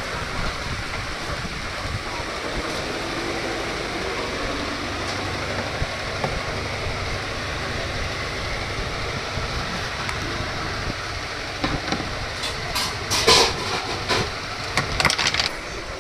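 Washing machine running with a steady rumble and hiss, with a run of sharp clattering knocks about twelve to fifteen seconds in.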